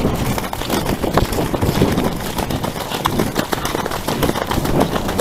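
Horses galloping across wet grass: a continuous run of hoofbeats under a steady rush of wind and rain on the microphone.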